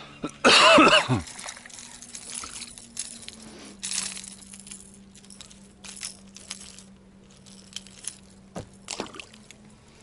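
Spinning rod cast: line whizzes off the spinning reel's spool in a loud, quickly falling sweep about half a second in. Then the reel is wound in to retrieve the wobbler, with a faint steady hum and scattered small clicks.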